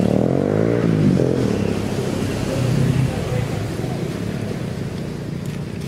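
A vehicle engine running close by, its pitch sliding up and down for about the first second and a half, then settling into a lower drone that slowly fades.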